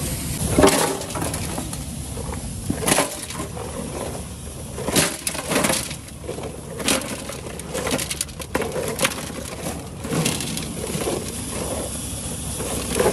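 Dry maize cobs knocking and clattering as they are tipped and dropped into a metal pan, in irregular knocks a second or two apart.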